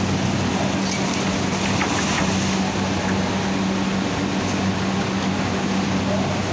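Sugar mill machinery running with a steady low hum over a constant mechanical din, as an overhead crane grab lifts sugarcane off a trolley.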